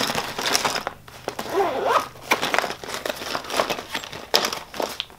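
Clear plastic zip pouch crinkling and rustling as it is handled and pushed back into a hanging makeup case, in short irregular crackles.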